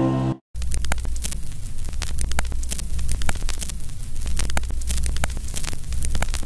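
Music cuts off shortly after the start, and after a brief gap an old-television static sound effect begins: crackling hiss with many sharp clicks over a steady low hum.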